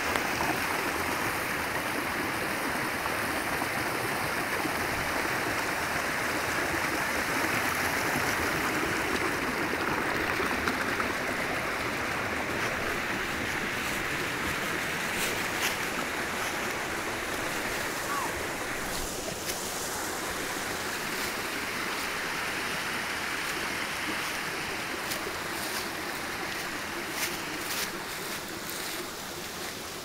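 Mountain creek cascading over granite boulders into a pool, a steady rush of water that grows a little fainter near the end. A few short clicks sound over it in the second half.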